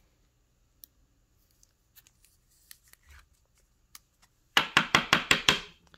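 A sleeved trading card being slid into a rigid plastic toploader, plastic rasping on plastic. Faint handling ticks come first; a little over halfway through there is a quick run of about seven sharp scraping rasps lasting just over a second.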